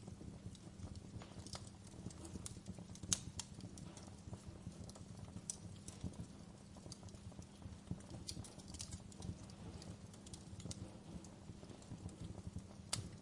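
Wood fire crackling in a stone fireplace: irregular snaps and pops over a low steady rumble, with a sharper pop about three seconds in and another near the end.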